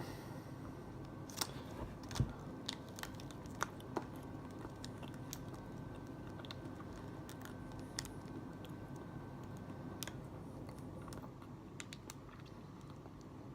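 Small clicks and crackles of biting into a chocolate-glazed curd cheese bar (syrok), mostly in the first four seconds, then quiet chewing. A low steady hum and a faint high tone run underneath, and the tone stops about ten seconds in.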